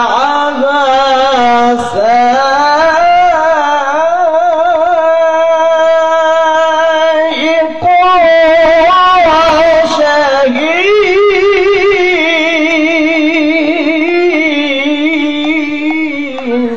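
A male Quran reciter's solo voice in a long, ornamented tilawah phrase: held notes with a fast wavering trill, climbing higher about ten seconds in, then sinking back and ending.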